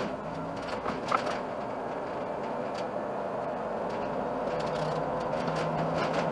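Iveco Urbanway city bus running and gathering speed, a steady engine and road noise with a low hum and a few light clicks and rattles.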